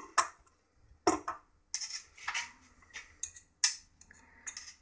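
Metallic clicks and scrapes of a test probe's tip being worked onto a wire's crimped ring terminal, about seven sharp clicks at uneven intervals. A faint steady hum lies underneath.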